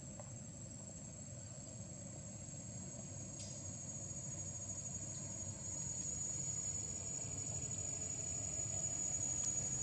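Steady high-pitched drone of insects, with a low rumbling background noise underneath; the whole grows slowly louder toward the end.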